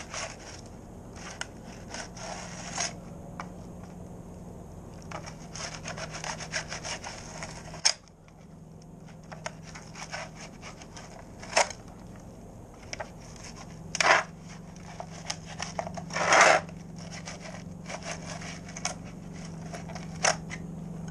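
Fillet knife sawing and scraping between a fish fillet's meat and its scaled skin on a plastic fillet board, in short irregular strokes with a few louder rasps in the second half. A steady low hum runs underneath.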